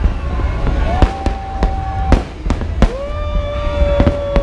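Fireworks exploding in a rapid, irregular series of sharp bangs over a steady low rumble. Two long steady tones sound over them, one about a second in and one from about three seconds in, each rising at its start.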